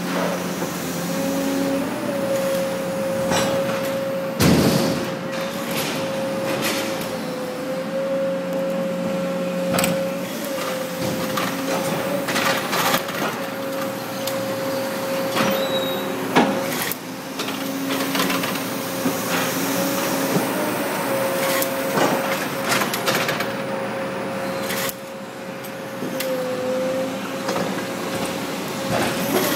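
Hay compression and bale-strapping machinery running: a steady whine under irregular clanks and knocks, with one loud bang about four and a half seconds in.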